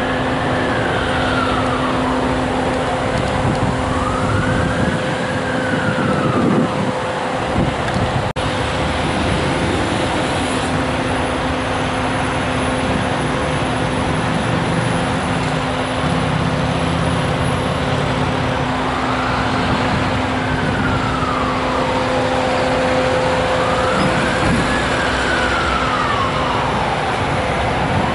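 Emergency vehicle siren wailing in slow rises and falls, dropping out for a stretch in the middle and then coming back. Underneath, a steady hum of idling engines and road traffic.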